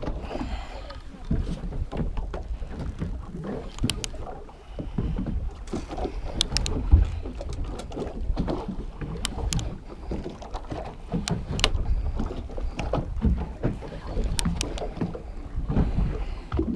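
Low rumble of wind and water around a small boat at sea, with scattered knocks and clicks from handling a spinning rod and reel.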